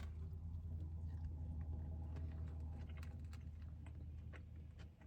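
Close-up chewing, with scattered small wet clicks and crunches that come more often from about halfway through, over a steady low hum.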